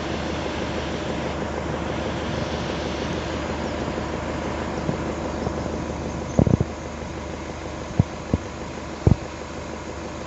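Wind rushing over a phone microphone, a steady noise with a low hum underneath, broken by short low thumps about six, eight and nine seconds in.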